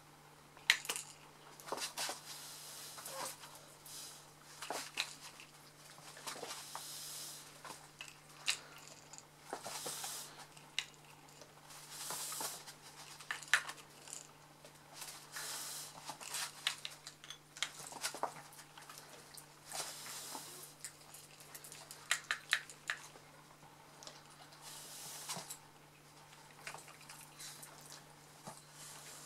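Shih-Tzu puppy snapping its jaws at soap bubbles: scattered sharp clicks and snaps of its teeth, with the patter of its paws on the floor, and now and then a short burst of hiss.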